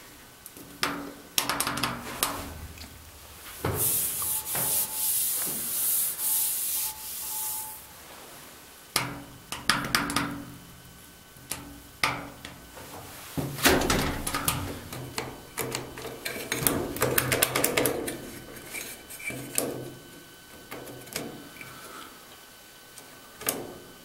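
Clicks and scraping, rubbing noise from a finger pressing and working at the buttons of a lift's control panel, with a loud hissing scrape about four seconds in and a dense run of clicks and rubbing in the second half.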